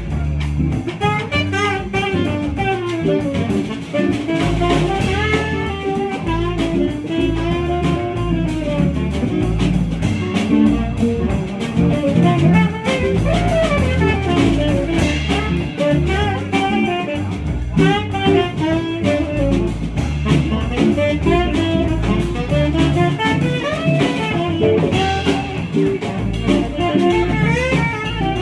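Live jazz combo playing: a melodic line over an archtop jazz guitar, with a stepping bass line and drums keeping time.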